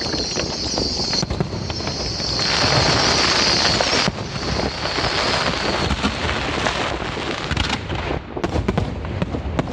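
Fireworks going off in a dense, continuous barrage of bangs and crackle. A bright hiss runs through the first four seconds, and quick sharp crackling pops fill the last few seconds.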